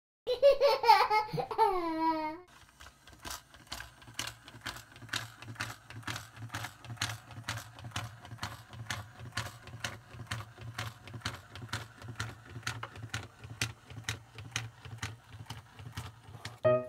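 A high, child-like laugh falling in pitch for about two seconds, then a steady run of evenly spaced clicks, about three a second, over a low hum.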